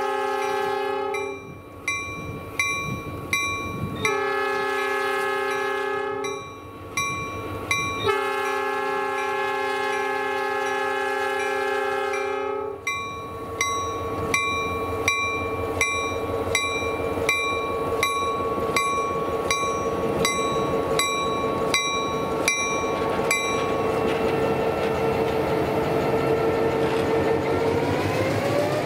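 EMD GP9 diesel locomotive sounding its horn in three long blasts, the last about five seconds long, while its bell rings steadily at a crossing approach. After the horn stops, the bell rings on for about ten seconds more and then stops, and the locomotive crawls past close by: its 16-cylinder 567 engine runs with a steady hum and a tone that rises near the end.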